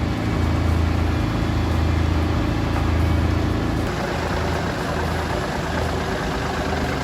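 Heavy vehicle engine running steadily at low revs. Its note shifts slightly about four seconds in.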